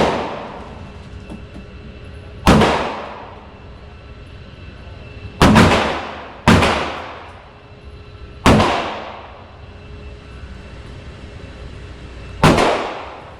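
Five single 9mm pistol shots from a Gen 6 Glock 19, fired slowly one at a time, one to four seconds apart, each followed by a ringing echo.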